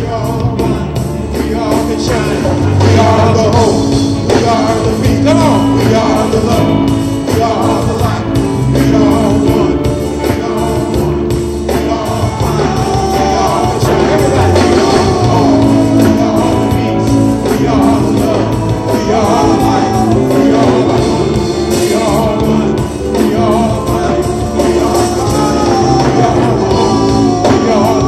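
A large group of singers singing a simple chant-like song together over a live band with a steady drum beat.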